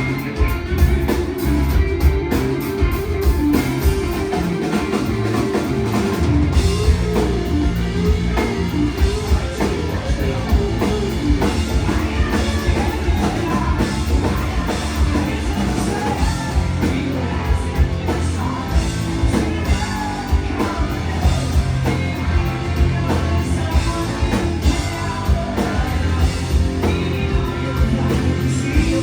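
Live rock band playing at full volume: drum kit beating steadily under electric guitars, with a voice singing over them.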